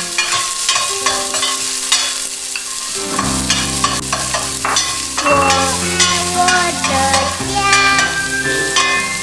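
A metal spatula scraping and stirring food in a stainless steel frying pan, in short irregular strokes over a frying sizzle, with instrumental background music playing steady held chords.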